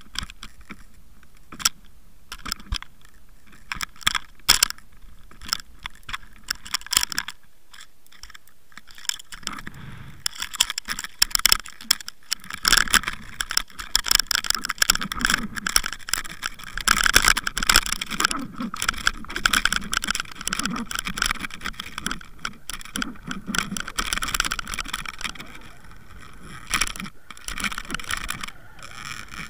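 Underwater camera rig on a fishing line clicking and rattling underwater: separate sharp clicks and knocks at first, turning about ten seconds in into a denser, continuous rattling scrape.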